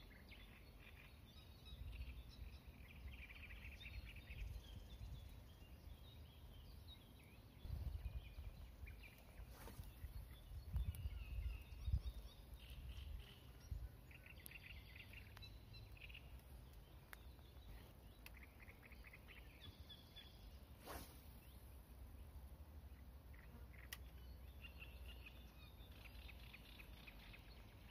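Faint pond-side ambience: small birds chirping and singing on and off, over a gusty low rumble of wind on the microphone, with a few sharp clicks.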